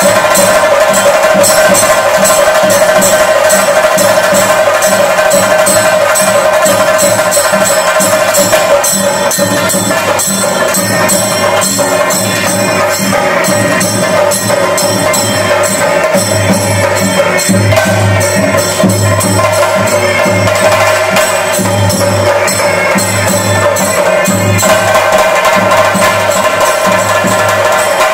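Chenda drums beaten with sticks in a fast, dense rhythm for theyyam ritual, with a steady ringing tone held above the beats.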